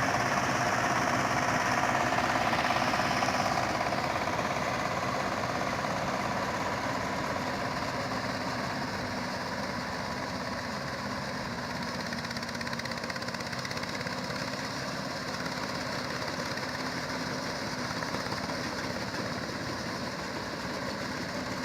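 Combine harvester engine running steadily, a little louder for the first few seconds and then holding level.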